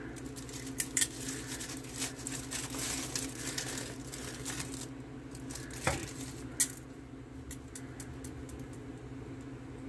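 Handling noise from a stainless steel canteen being slid out of its insulated nylon cover and the cover being opened: fabric rustling and scraping with scattered clicks and light knocks, the sharpest click about six and a half seconds in. A low steady hum runs underneath.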